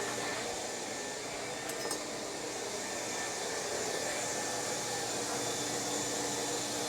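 A steady machine hum and hiss, as of a running fan or blower, with a couple of faint light clicks about two seconds in.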